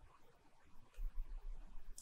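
Quiet room tone with a low rumble through the second half and a single short click near the end.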